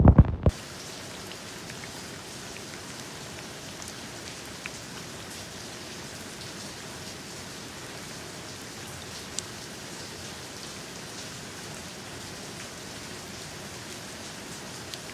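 Steady rain falling, an even hiss with a few louder single drops ticking now and then. In the first half-second a loud, low, gusty rumble stops abruptly.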